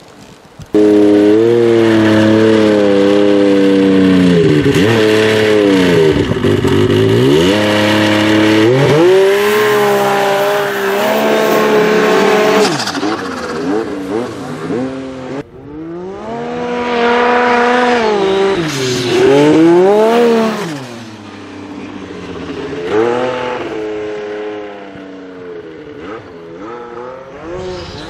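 Turbocharged Yamaha Nytro snowmobile's four-stroke three-cylinder engine revving hard through a series of rising and falling pulls. The engine is loudest in the first half and quieter in the later stretch.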